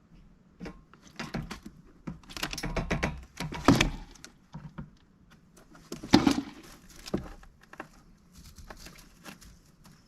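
A mallard duck moving about in an indoor pen: irregular knocks, taps and rustling, with the sharpest clatters nearly four and about six seconds in.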